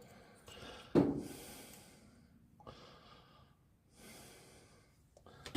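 A man breathing heavily, with a sharp snort-like exhale about a second in and two softer breaths after it, as he strains to fit a brake part that won't go in.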